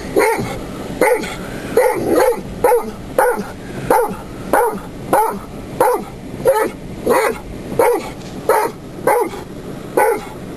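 A dog barking over and over at a steady, even pace, about three barks every two seconds.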